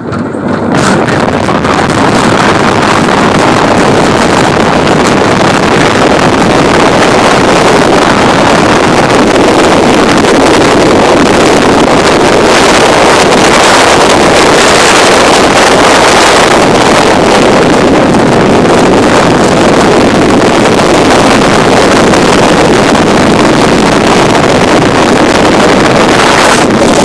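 Wind buffeting the phone's microphone at high speed on a steel roller coaster, with the train running along the track. It builds up in the first second as the train drops, then stays loud and steady.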